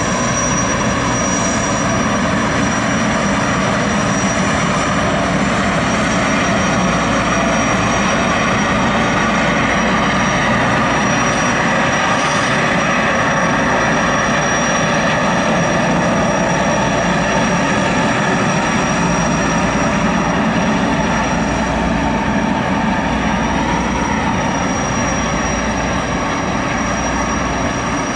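Boeing 929 Jetfoil's twin gas turbines running as the craft pulls away under waterjet propulsion: a loud, steady jet-like sound with a thin, high, steady whine on top, easing slightly near the end.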